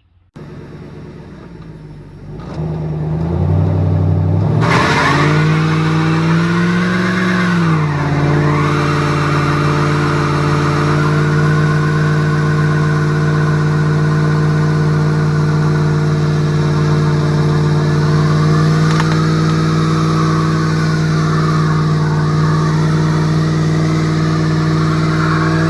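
A car engine starts up, revs up and back down over a few seconds, then runs at a steady, loud, even note.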